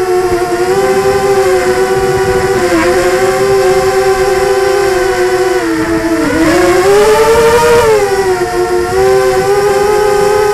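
Quadcopter drone's electric motors and propellers whining steadily, heard from the drone's own onboard camera. The pitch dips about six seconds in, climbs to a peak a little later and settles back as the drone manoeuvres.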